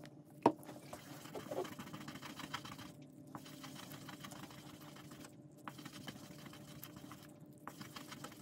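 A resin die rubbed back and forth on a wet, fine-grit blue sanding sheet: a faint, steady gritty scratching of wet sanding, with three short pauses. A single sharp click about half a second in.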